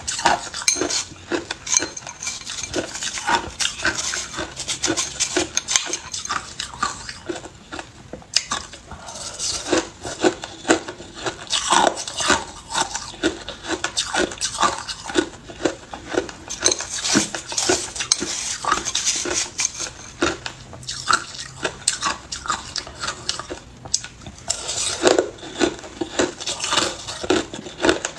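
Hard ice being crunched and chewed, mixed with a metal spoon clinking and scraping against a glass bowl of crushed ice, in a dense run of irregular short crackles.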